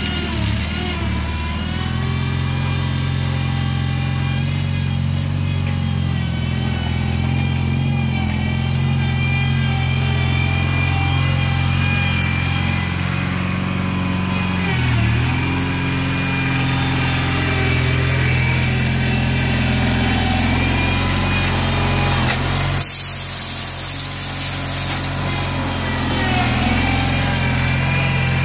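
Engine of a small loader-backhoe tractor running steadily as it works. Its note sags briefly about halfway through, then picks back up.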